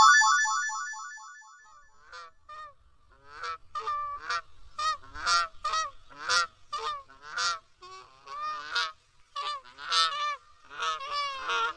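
A bright chime rings once at the start and fades away. Then a swan honks over and over in short, nasal calls, about two a second.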